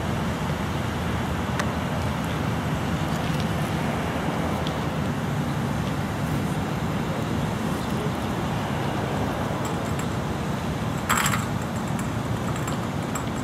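Steady outdoor background rumble and hiss, with a short bright clatter about eleven seconds in.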